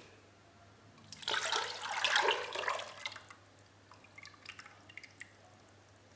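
Lemon juice and sugar mixture poured into a cooking pot in one rush of about two seconds, followed by a few light drips and clinks.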